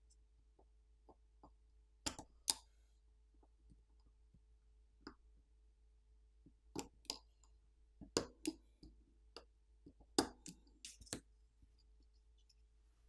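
Camera flex-cable connectors on a Samsung Galaxy S24 Ultra main board being popped off their board-to-board sockets with a pry tool. About a dozen small, sharp clicks come in scattered pairs and clusters.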